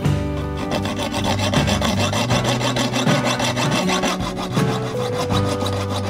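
A small fine-toothed frame saw cutting through a clear acrylic (plexiglass) sheet, making a steady run of rasping back-and-forth strokes, with background music underneath.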